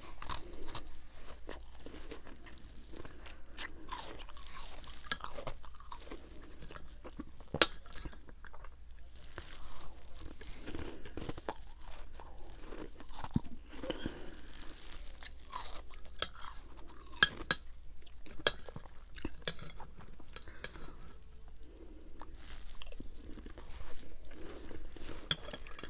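Close-up crunching and chewing of frozen freezer frost and ice, with irregular sharp crackles as the frozen chunks break between the teeth.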